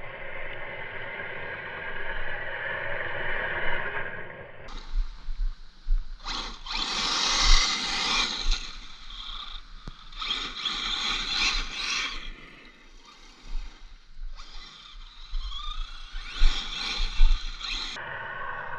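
Tekno MT410 6S RC monster truck's EzRun 4274 2200KV brushless motor and drivetrain whining, with three louder bursts of acceleration and low thumps from the truck bouncing.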